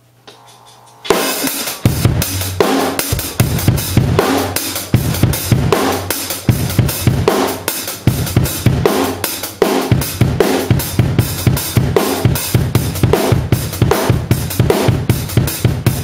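Acoustic drum kit played as a solo groove, with bass drum, snare and cymbals, starting about a second in and keeping up a dense, steady run of strokes.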